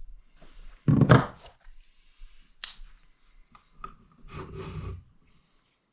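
Rubbing and scraping against wood, with two louder rough bursts about a second in and near the end, and a sharp click between them.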